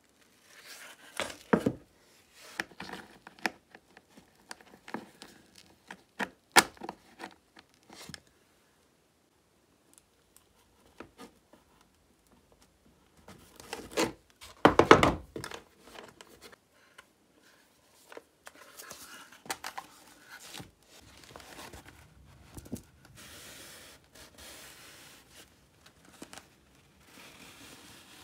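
Hand work on a suitcase being restored: scattered clicks and knocks, a louder thump about halfway through, then a longer stretch of rustling and crinkling of material.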